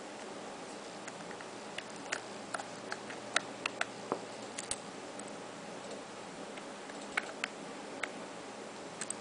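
Irregular small clicks and taps of a USB flash drive with a metal key ring being handled against a smartphone, bunched in two spells with a steady hiss underneath.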